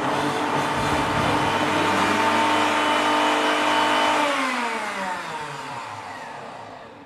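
High-speed countertop blender running at full speed through a thick chocolate batter, then switched off about four seconds in, its motor whine falling in pitch and fading as it spins down.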